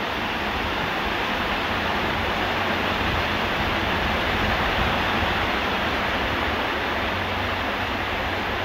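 Steady rushing noise of a large electric fan blowing strong air across the microphone, with a low rumble underneath.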